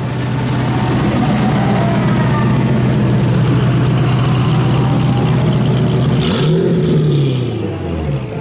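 Corvette Z06's LS7 V8 through a modified exhaust, running at a steady idle, then given one quick throttle blip about six seconds in, its pitch rising and falling straight back before it settles.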